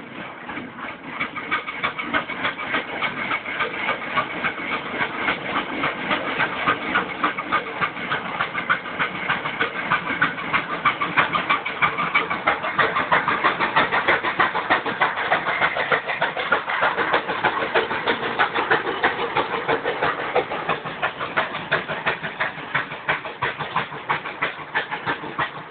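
Allchin Royal Chester steam traction engine working up a slight slope, its exhaust chuffing in a rapid, even beat. It grows louder as it approaches and passes close by, loudest from about halfway through.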